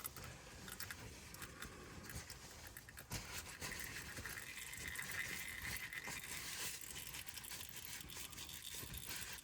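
Faint pattering of used engine oil dripping into a drain pan, with a few light clicks of handling.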